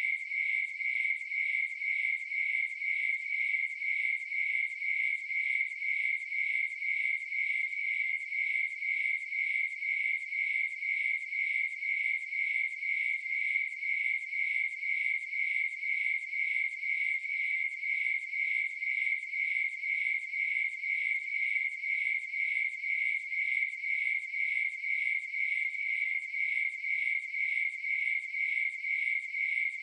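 Cricket chirping in a steady, even rhythm at one high pitch.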